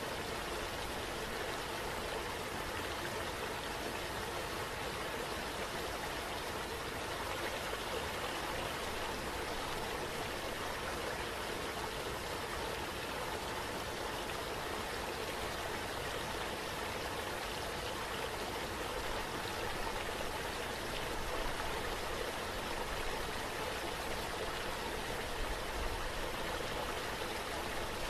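Steady rushing water, an even hiss without breaks.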